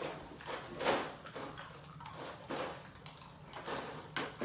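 Scattered soft knocks and rustles of hands grabbing hard sour candies from the table and shoving them into mouths, the loudest about a second in.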